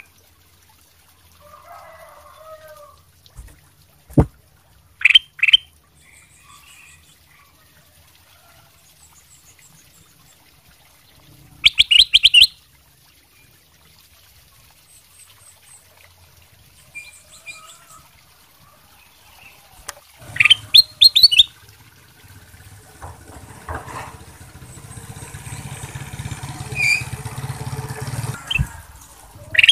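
Ruby-throated bulbul (kutilang emas) giving short, loud chirping song phrases a few seconds apart: two quick ones about five seconds in, a longer phrase around twelve seconds, a cluster around twenty seconds and another at the very end. A low rumble builds through the second half.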